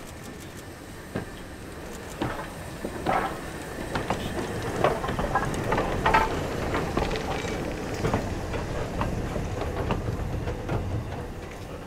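BR Standard Class 2MT steam locomotive running light at low speed past the listener: its wheels and motion clank and click irregularly over the rail joints over a low rumble, getting louder as it passes, loudest around the middle, then fading away.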